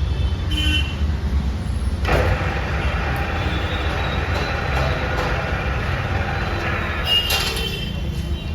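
All-geared heavy-duty lathe running, with a steady low hum. A louder whirring mechanical noise sets in suddenly about two seconds in and eases off near the end, with a brief sharper, high-pitched burst just before it does.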